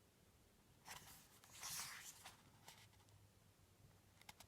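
Faint paper rustle of a picture book's page being turned, about one to two seconds in, then a few soft clicks near the end.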